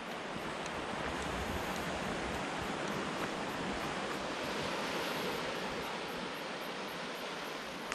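Sea surf washing on the shore: a steady rushing hiss that swells and eases back around the middle.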